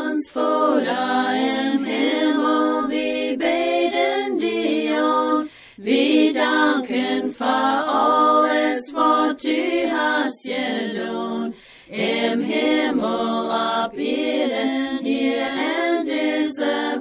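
Unaccompanied singing of a Plautdietsch hymn, sung in long phrases with short breaks about five and a half and eleven and a half seconds in.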